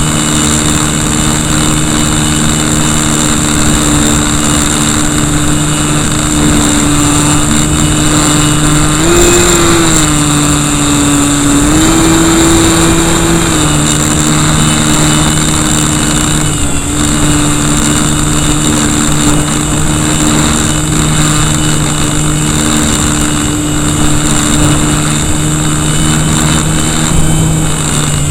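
Electric RC plane's brushless outrunner motor (KV1100) driving its propeller, heard up close from a camera mounted beside the motor: a steady hum with a high whine, its pitch rising and falling briefly about nine and twelve seconds in as the throttle changes. Wind rushes over the microphone underneath.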